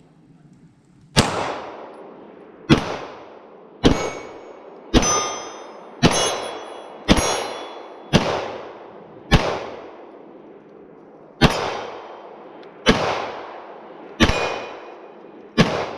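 About a dozen gunshots fired one at a time, roughly one every second or so with a longer pause near the middle, each followed by a decaying echo; after several of them a steel target rings with a thin metallic tone.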